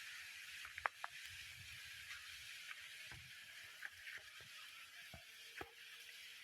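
Faint outdoor ambience: a steady high hiss with a few scattered soft clicks and knocks, the sharpest about a second in.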